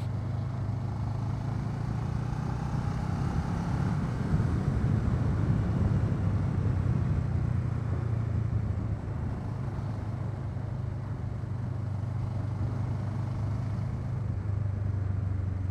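A 2009 Kawasaki ER-6n's 650 cc parallel-twin engine running at a steady cruising throttle, with wind noise over an unfiltered microphone. The drone eases slightly about nine seconds in.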